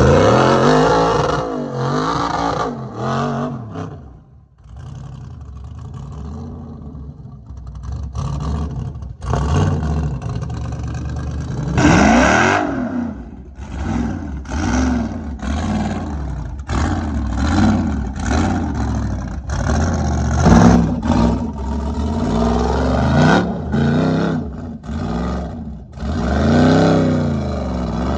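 Rock buggy's engine revving hard in short repeated bursts, the pitch climbing and falling with each blip of the throttle as it crawls up rock ledges, with knocks and clatter of the tires and chassis against the rock. About four seconds in the engine drops lower for a few seconds before the revving resumes.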